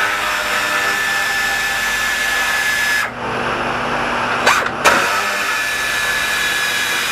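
Cordless power driver running in two bursts of about three seconds each, with a steady whine and a sudden stop each time, as it backs out the screws holding the headlight assembly. There are a couple of short clicks between the two runs.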